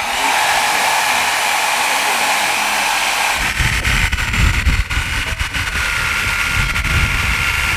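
A motor running steadily at high speed. An irregular low rumble joins it about three and a half seconds in.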